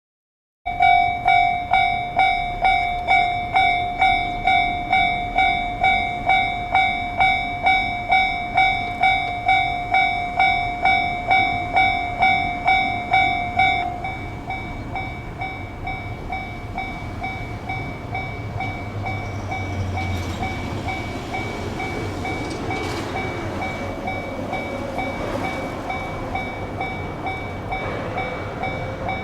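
Japanese level-crossing alarm ringing its rapid electronic ding at about two strikes a second. About fourteen seconds in it drops much quieter but keeps ringing, and a diesel train then runs past over the crossing, its rumble building through the last ten seconds.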